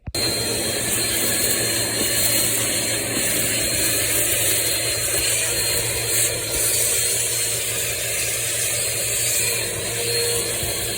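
An electric tool motor running steadily, with a strong high hiss over a thin high whine and a low hum. It starts abruptly.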